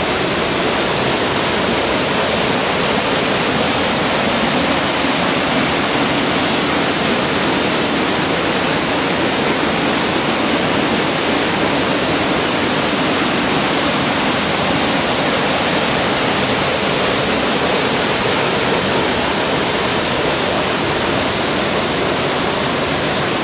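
Waterfall pouring over rocks into a plunge pool, with water rushing down a rocky stream: a steady, loud rush of falling water.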